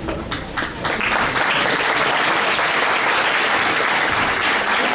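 Audience applauding: a few separate claps that swell within about a second into full, steady applause.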